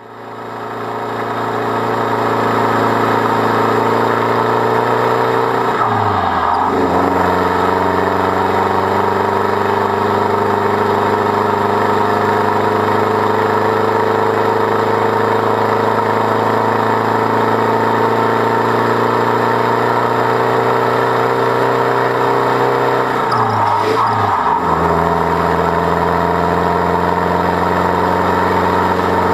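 Decatted Land Rover Defender engine pulling hard under a heavy towing load uphill. Its note climbs slowly in each gear, with two gear changes about 6 s and 24 s in where the pitch drops and then rises again.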